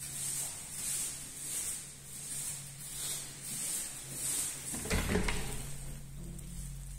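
Footsteps scuffing at a walking pace, each step a soft hiss, with a louder knock about five seconds in, over a low steady hum.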